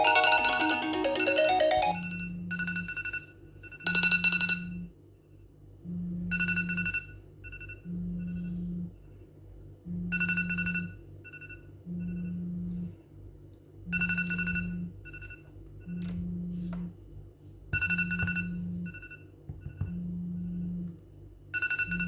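iPhone alarm sounding: a melodic ringtone stops about two seconds in. Then a low buzz about a second long repeats every two seconds, with short high beeps and clicks between the buzzes.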